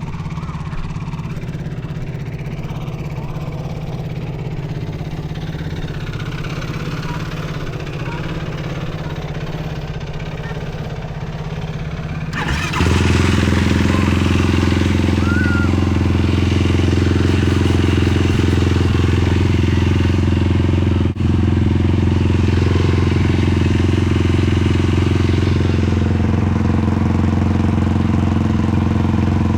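Sport quad engines running at a steady idle. About twelve seconds in, a louder engine close by takes over, holding an even, steady pitch.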